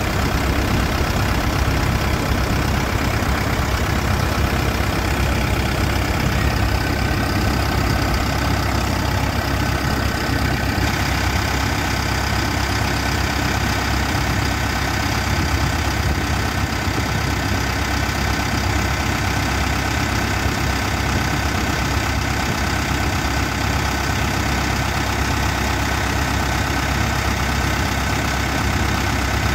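Wheeled excavator's diesel engine idling steadily, heard close up from the open engine bay.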